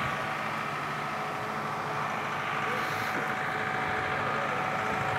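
Steady outdoor background noise with a faint constant hum, like a distant engine.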